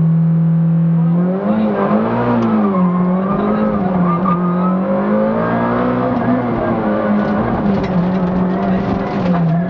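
Competition car's engine heard from inside the cabin, held at steady revs while stationary, then from about a second in pulling away hard, the revs rising and falling through gear changes.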